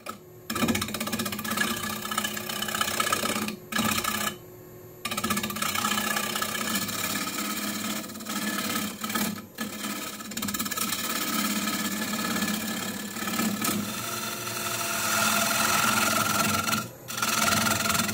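Gouge cutting the inside of a walnut bowl spinning on a Record Power Coronet wood lathe: a steady scraping hiss of the tool shearing the wood over the lathe's running hum. The cut breaks off briefly a few times, once for most of a second about four seconds in.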